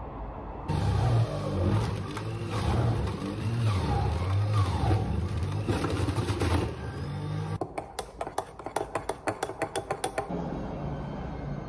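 Electric centrifugal juicer motor running for about six seconds, its pitch rising and falling as oranges are pressed down the feed chute. After it stops, a thin metal stirrer clinks quickly against a ceramic mug, about eight taps a second for a couple of seconds.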